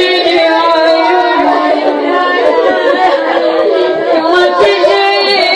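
A woman chanting a Shia mourning lament (na'i) in long, held, wavering notes.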